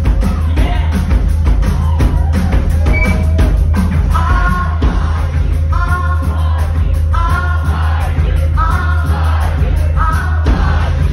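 Live band playing: a female lead singer sings loudly into a microphone over electric guitar, a drum kit and heavy bass, in repeated sung phrases.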